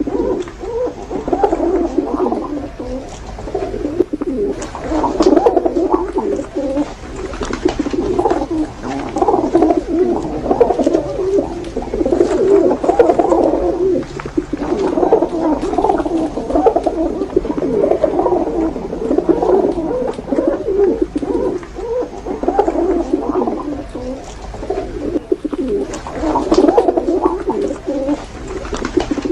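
Many domestic pigeons cooing together, their low burbling calls overlapping continuously.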